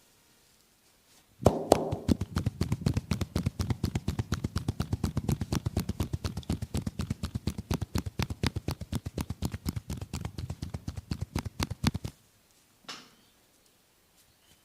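Percussive massage on a person's back: hands striking the body in a fast, even rhythm of about six to seven blows a second for some ten seconds, then stopping abruptly, with one single strike about a second later.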